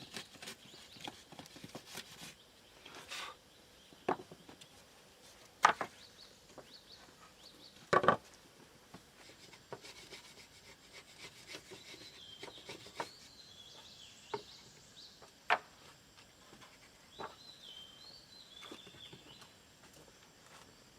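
Wood being worked by hand: scattered knocks and scraping of wooden pieces, with two louder knocks about six and eight seconds in.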